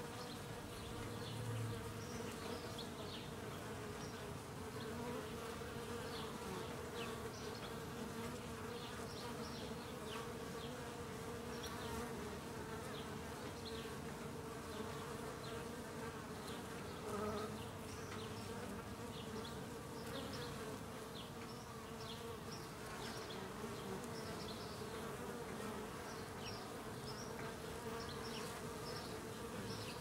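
Honeybees buzzing at the entrance of their hive: a steady hum of many wings as foragers land, crawl and take off.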